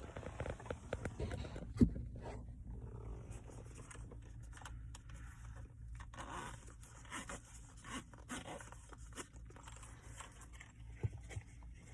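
Rustling and scraping of a small microphone-kit carrying case being opened and its contents handled, with a sharp click about two seconds in and a smaller one near the end.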